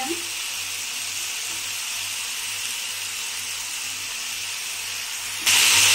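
Vegetables frying in oil in a kadai: a steady sizzle, which jumps abruptly louder near the end.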